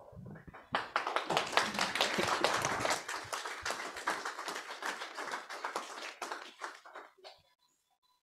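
Congregation applauding. The clapping swells in about a second in, is fullest for the next couple of seconds, then thins out and dies away near the end.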